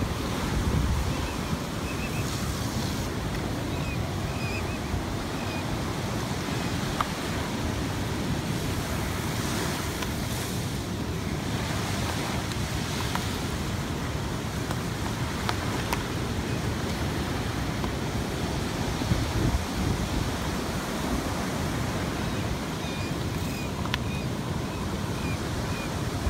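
Steady wind rush on the microphone of a moving beach land yacht, mixed with surf breaking along the shore. A few faint chirps and light ticks sit under it.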